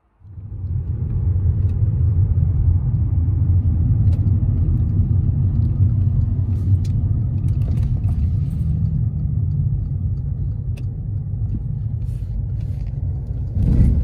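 Car driving, heard from inside the cabin: a steady low rumble of engine and road noise that swells louder briefly near the end.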